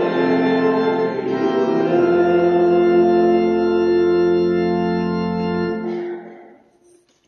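Church organ holding the closing chords of a hymn, with a deep pedal bass note joining about two seconds in. The final chord is released about six seconds in and rings out briefly in the sanctuary's reverberation.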